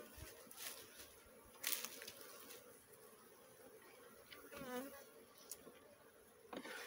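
Honeybees buzzing in a steady, faint hum around their disturbed nest, the colony stirred up and defensive. A few sharp rustling crackles come through, the loudest about a second and a half in.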